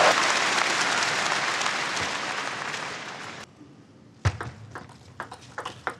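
Arena crowd applauding and cheering after a won point at a table tennis match, dying away about three and a half seconds in. Then a few sharp clicks of the ball being bounced as the next serve is readied.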